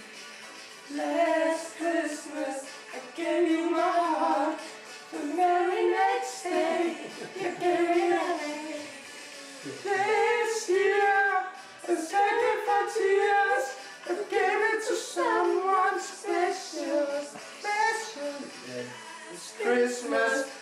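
A young woman and a young man singing a song together, phrase after phrase.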